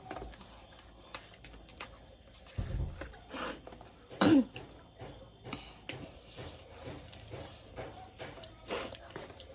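A person eating close to the microphone, with small clicks and mouth noises throughout. A short throat-clearing cough about four seconds in is the loudest sound.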